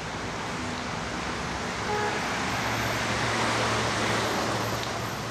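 Steady road traffic noise, with cars passing along a busy city avenue. It grows louder about two seconds in, and a low engine hum joins it as a vehicle goes by.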